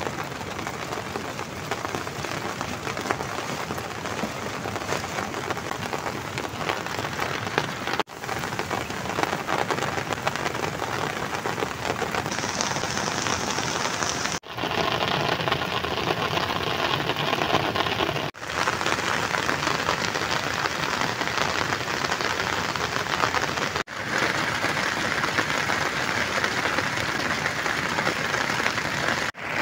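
Heavy rain falling, a steady dense hiss of rain on grass and tent fabric, broken by a few brief gaps where the shot changes.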